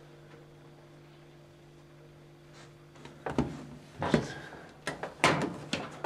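Refrigerator compressor humming steadily while running under load, drawing about 91 watts. About halfway through, a series of sharp knocks and clatters from handling takes over as the loudest sound.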